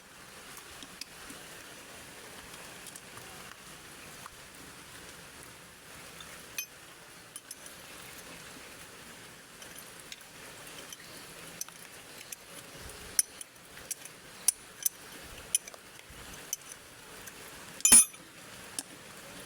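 Scattered metal clinks and taps of tools and parts during a differential teardown, more frequent in the second half, with one loud, sharp metallic knock near the end.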